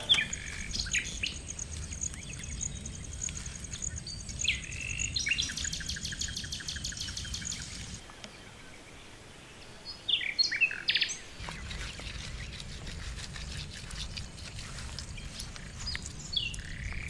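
Wild birds chirping, with short sharp calls and a rapid high trill running through the first half. The loudest burst of chirps comes about ten seconds in.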